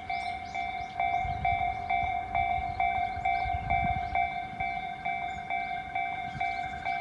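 Japanese railway level-crossing alarm ringing, an electronic two-tone ding repeating a little more than twice a second, the warning that a train is approaching. A low rumble comes and goes underneath.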